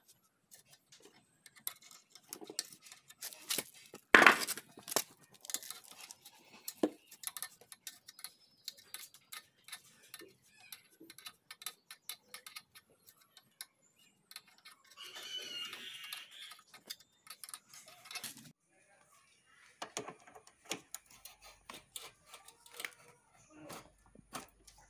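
Scattered metal clicks, taps and scrapes of hand tools, a screwdriver and pliers, working the tail end of a chrome motorcycle silencer. A sharp knock comes about four seconds in, and a longer stretch of scraping about fifteen seconds in.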